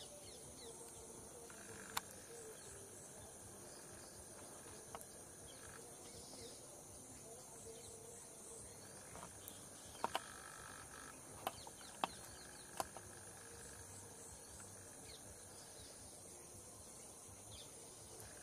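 Forest ambience: a steady high-pitched insect chorus with a few faint bird chirps, broken by sharp clicks or snaps once about two seconds in and several times between ten and thirteen seconds in.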